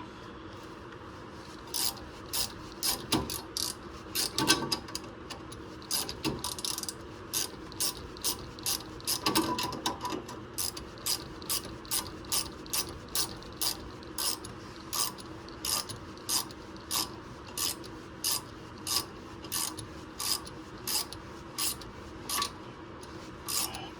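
Hand ratchet wrench clicking in steady back-and-forth strokes, roughly two a second, slowly driving a seized front wheel hub out of its knuckle.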